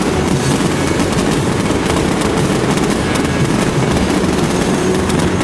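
Aerial fireworks going off in rapid succession: a continuous barrage of bangs and crackles with no pause.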